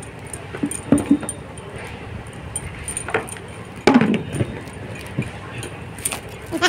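A plastic container being handled on a concrete floor: a few light knocks and clicks, then a louder knock about four seconds in as it is set down.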